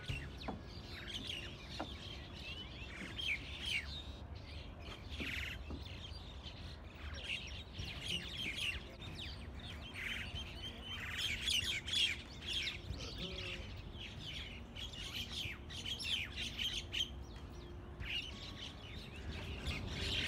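A flock of birds perched in the treetops, chirping and calling over each other in quick overlapping spells.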